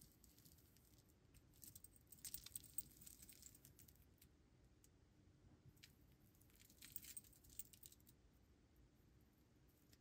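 Faint metallic jingling and rustling of a steel mesh watch bracelet handled in gloved fingers, in two short bouts, about two seconds in and again around seven seconds in.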